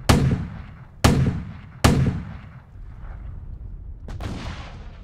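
Battlefield gunfire: three loud shots about a second apart, each with a long booming echo, then a weaker, duller blast a little after four seconds in.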